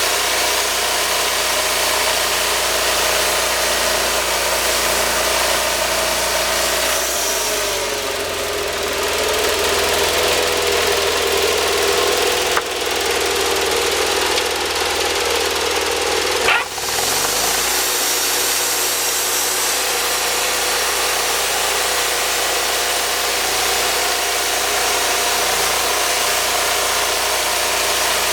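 Wood-Mizer sawmill's engine running steadily. About seven seconds in its pitch drops and stays lower for roughly ten seconds, with a sharp click partway through and another as the pitch rises back to its earlier speed.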